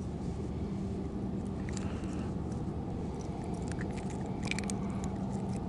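Faint short clicks and ticks, a few scattered through the middle, as the hook of a metal spoon lure is worked free from a skipjack herring's mouth, over a steady low background rumble.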